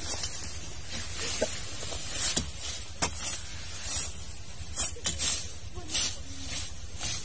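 Feet and snake tongs swishing through tall grass: short dry rustles about once a second, over a steady low rumble.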